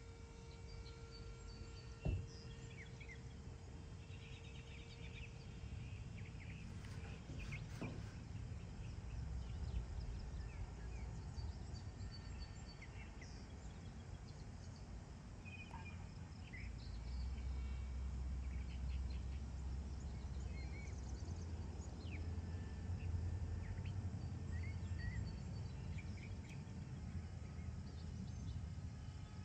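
Outdoor ambience: scattered short bird chirps over a low rumble that grows louder about halfway through, with one sharp click about two seconds in.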